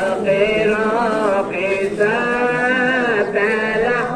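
A man's voice chanting an Islamic devotional recitation in long, wavering melodic phrases, with short breaks for breath between them.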